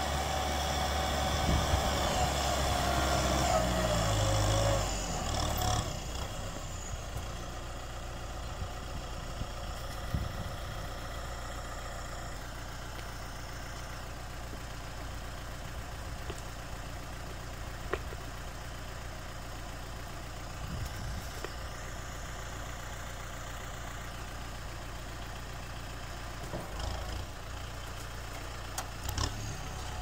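Kubota tractor's diesel engine running under power, its pitch falling about four to five seconds in as the revs drop, then idling steadily.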